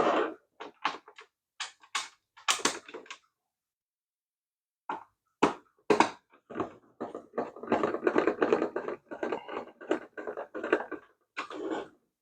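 Small plastic parts of a toy RC car being handled and fitted together by hand: a series of sharp clicks and knocks, then a few seconds of dense rattling and clattering.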